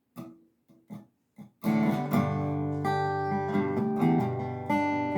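Three short taps, then about a second and a half in a Gretsch resonator guitar starts the song's instrumental intro: strummed and picked chords ringing out.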